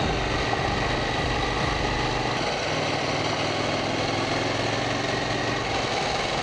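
KTM 790 Duke's parallel-twin engine running at a steady low speed under way, mixed with wind and road noise; its note shifts a little about two and a half seconds in.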